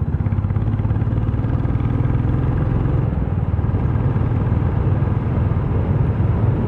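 Motorcycle engine running steadily at cruising speed, heard from the rider's seat, with a fast even pulsing to its low hum.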